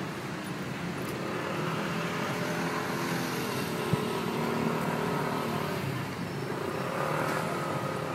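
Street traffic with a motor vehicle's engine humming close by, swelling a little through the middle; a single sharp click about four seconds in.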